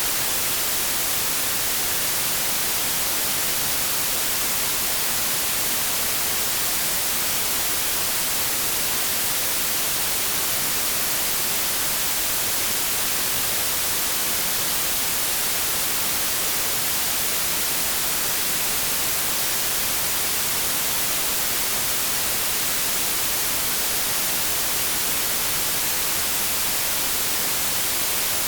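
Synthetic 'inverse' white noise: a steady, unbroken hiss whose energy rises toward the treble, so it sounds bright and sharp rather than deep.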